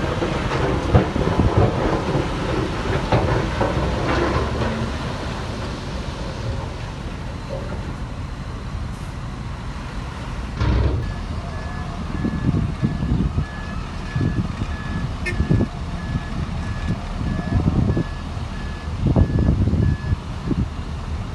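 Heavy diesel earthmoving machinery running, with clanks and knocks in the first few seconds. About halfway through, a reversing alarm starts beeping at one steady pitch, about two beeps a second, and stops shortly before the end.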